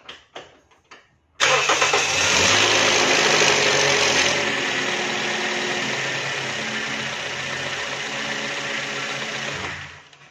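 Toyota Yaris engine started about a second and a half in, on its first run after an oil and filter change so that the fresh oil reaches pressure. It runs steadily, a little quieter from about four seconds in, and is switched off about eight seconds later.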